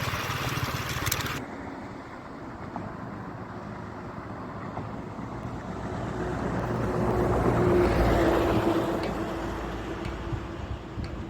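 A motor vehicle going past: its noise and a steady hum build up to their loudest about eight seconds in, then fade away.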